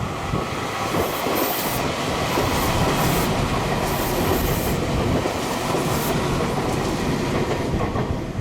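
Meitetsu electric train passing through a station without stopping: a steady, loud rush of wheels running on rail.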